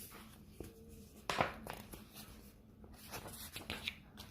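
Faint paper rustling with a few soft taps, about a second in and again around three seconds in: a picture book's pages being handled and turned.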